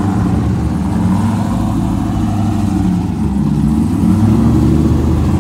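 C5 Chevrolet Corvette's V8 running at low revs as the car pulls away slowly, a steady exhaust note whose pitch dips about three seconds in and then rises slightly.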